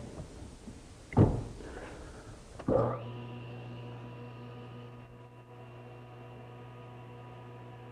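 Two wooden knocks as the board is handled on the table saw, the louder one about a second in. About three seconds in a table saw motor starts and runs with a steady hum.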